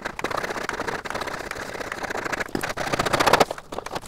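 Hacksaw sawing through 100 mm PVC pipe in steady back-and-forth strokes, deepening a cut that was first scored around the pipe.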